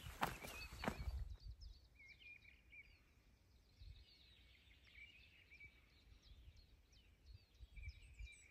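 A few footsteps on a woodland path in about the first second, then faint birdsong of short high chirps and twitters.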